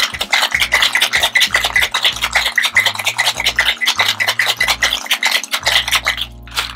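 Ice rattling hard inside a metal tin-on-tin cocktail shaker being shaken fast, a rapid, even rattle that stops about six seconds in. A low background music beat runs underneath.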